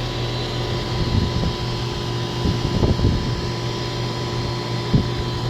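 A GMC 3-ton central air conditioner's outdoor condensing unit running, its fan and compressor giving a steady hum. A few low thumps come through about a second, three seconds and five seconds in.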